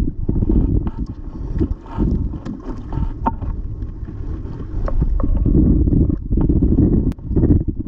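Wind buffeting the microphone in uneven gusts, with scattered small clicks and knocks from fishing tackle being handled: a lure and the rod and reel.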